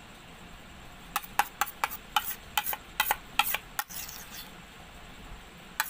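Steel spoon stirring glue in a stainless steel bowl, clicking and scraping against the metal: a quick run of about a dozen clicks from about a second in, then quieter stirring, with one more click near the end.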